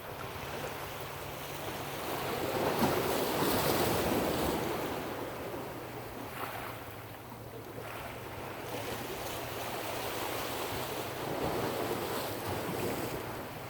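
Ocean waves washing in, with wind buffeting the microphone; one swell builds about three seconds in and another near the end.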